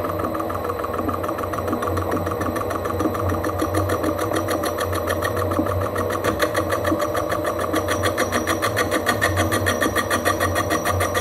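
Holbrook C8 metal lathe running under a cut with a high-speed-steel tool, with a rapid, even pulsing that grows stronger about six seconds in. The cut is noisy.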